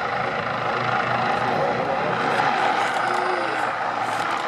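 Eurocopter EC145 twin-turbine helicopter hovering overhead: a steady rotor and turbine noise with no change in pitch.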